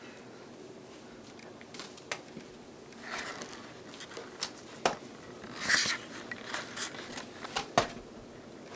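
Juggling balls slapping and clicking into the hands as they are caught and handled, in an irregular scatter of short strikes, the loudest near the end.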